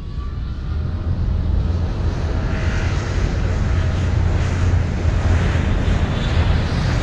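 Propeller airliner's piston engines droning steadily, swelling up over the first second or so, with a rushing hiss growing louder from about halfway through.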